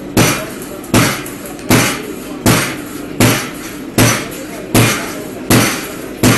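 Blacksmith's hammer striking metal on an anvil in an even rhythm: nine sharp blows, about one every three-quarters of a second, each with a short ring.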